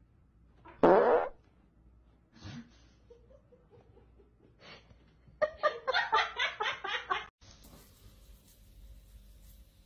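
A fart, one short loud burst about a second in. A few seconds later a person laughs in a run of quick repeated bursts.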